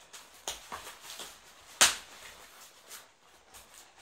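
Scissors cutting packing tape on a cardboard box and the box's flaps being pulled open: a few short scrapes and clicks, with one sharp, loud crack a little under two seconds in.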